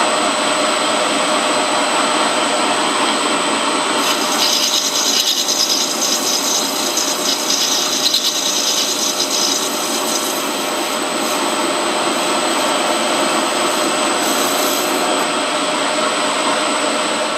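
Metal lathe running with a steady motor whine while a cutting tool turns a shoulder on the workpiece. A harsher scraping cutting noise comes in about four seconds in and eases off a few seconds later.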